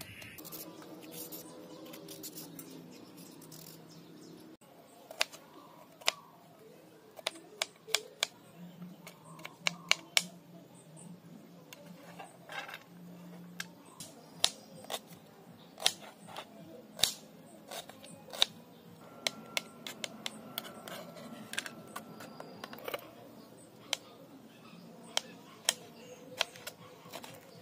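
A kitchen knife slicing onion and green chillies on a plastic chopping board: irregular sharp taps of the blade striking the board, sometimes several in quick succession, starting about five seconds in.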